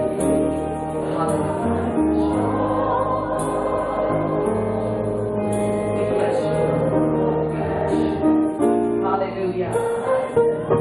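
Gospel music in church: a choir singing over an instrumental accompaniment of long held chords.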